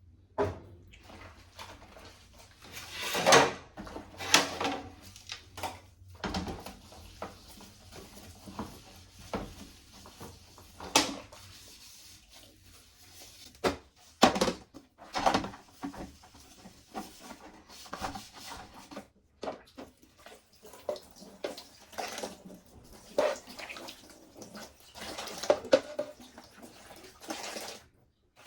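Water splashing and running while plastic fridge shelves and drawers are washed in a sink, with irregular knocks and clatters as they are handled.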